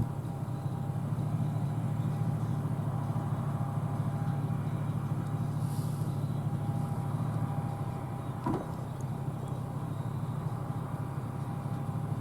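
John Deere combine harvester running steadily in a soybean field, a low drone with a faint steady whine above it. A brief click comes about eight and a half seconds in.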